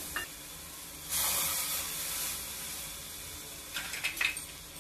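Watery peanut-and-curd paste hissing and sizzling in a small steel pot of hot oil tempered with cumin, the liquid boiling off as steam. The hiss swells about a second in and then eases, with a few light clicks near the end.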